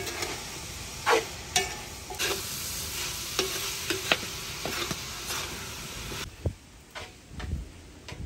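Food sizzling in a large metal wok while a metal ladle stirs and scrapes it, with sharp clinks of the ladle striking the pan. About six seconds in the sizzle drops away, leaving a few dull knocks.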